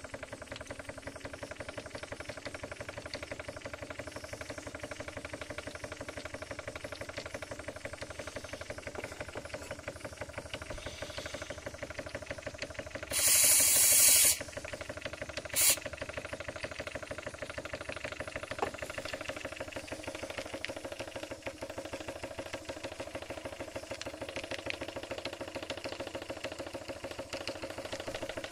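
Model steam engine running with a rapid, even beat. About halfway through there is a loud burst of steam hissing for about a second, and a brief second hiss follows soon after.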